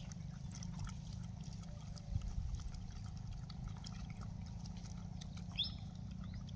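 Gray langurs and puppies drinking milk from bowls, with small wet laps, splashes and clicks over a steady low wind rumble. There is a thump about two seconds in and a short high chirp about five and a half seconds in.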